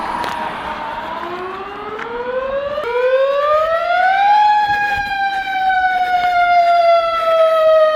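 A fire siren winding up, its pitch rising for about three seconds and then slowly falling, louder as it climbs.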